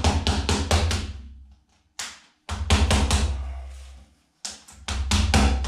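Rubber mallet tapping a plastic rim protector ring down onto an alloy wheel rim: rapid blows, about five a second, in three runs separated by short pauses.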